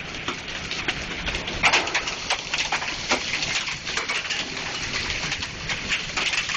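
Heavy rain with golf-ball sized hailstones striking hard surfaces: a steady downpour hiss scattered with many irregular sharp knocks.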